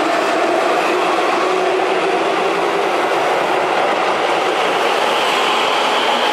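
Keihan electric commuter train pulling out of the platform, its wheels running over the rails with a steady rumble. A faint motor whine rises slowly in pitch as it gathers speed.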